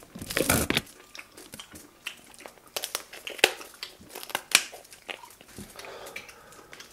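Boiled lobster shell being cut and cracked with kitchen shears and shrimp shell peeled by hand: a run of sharp, separate cracks, snaps and crinkles. A brief wet slurp of finger-sucking comes at the start.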